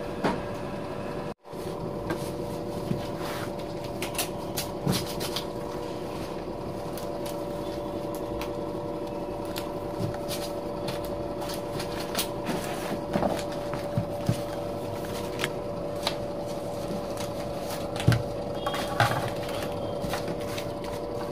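A steady background hum with a few constant pitched tones, with scattered light clicks and taps from a plastic speaker casing being handled. Two louder taps come near the end.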